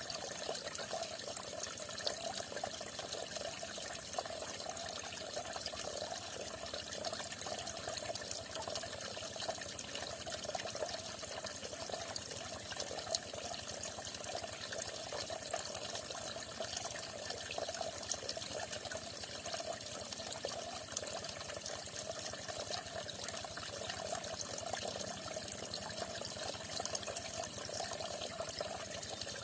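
Falling water splashing steadily, a constant trickling pour with fine splashes.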